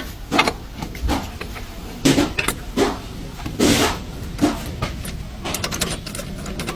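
Irregular knocks, scrapes and clatters of metal tools and parts being handled, about one a second, with a quick run of sharp clicks near the end.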